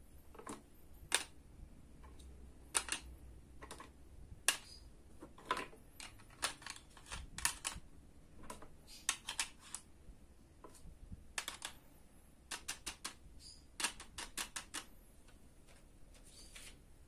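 Hard plastic toy food skewers and a plastic tray clicking and clattering as they are picked off a toy barbecue grill and set down. Irregular light clicks and taps, some in quick runs of several.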